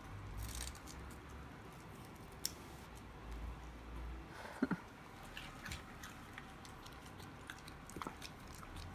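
Faint chewing and crunching of snacks, with scattered small clicks and taps; the sharpest come about two and a half and four and a half seconds in.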